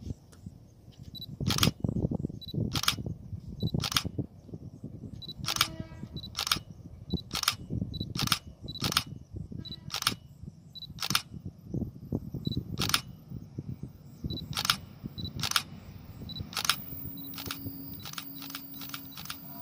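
A series of sharp clicks at irregular intervals, roughly one a second, over a low rumble like wind on the microphone. Near the end a low steady hum comes in as a distant diesel railcar approaches.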